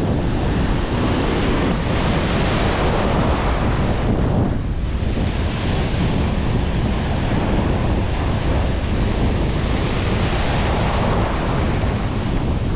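Ocean surf washing in and out around the wader's legs, with heavy wind buffeting the microphone. The wash swells and eases, dipping briefly about four to five seconds in before building again.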